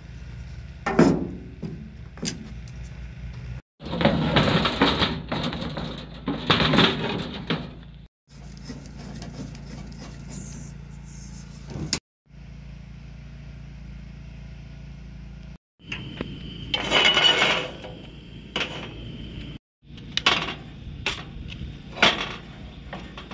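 Clanks, clicks and knocks of metal being handled while a propane camp stove is set up: a propane cylinder fitted to the stove's regulator and a skillet set on the burner grate. The sound comes in several short pieces with abrupt cuts between them.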